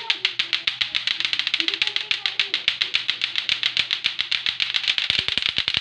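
Two lato-lato clackers, pairs of hard plastic balls on strings, clacking together rapidly and without a break, the sharp clicks of both toys overlapping at about ten a second.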